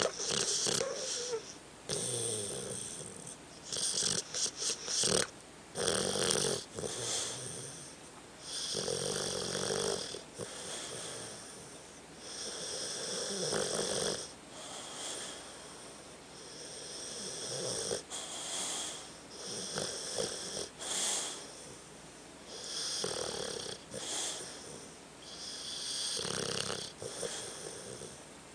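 A sleeping dog snoring: one noisy breath after another, each lasting a second or two and coming every couple of seconds, with a run of short, quick breaths about four seconds in.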